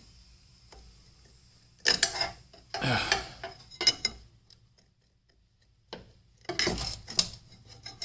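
Several short bursts of metal clinking and clattering: steel parts and tools knocking together during work on the Jeep's body and frame.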